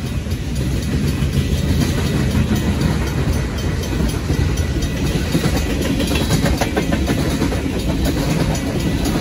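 Freight train's boxcars and tank cars rolling past: a steady rumble of steel wheels on the rails, with clicks of wheels over rail joints.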